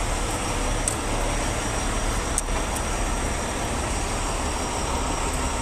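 Heavy diesel tow truck engines running steadily, an even low rumble with a couple of faint clicks.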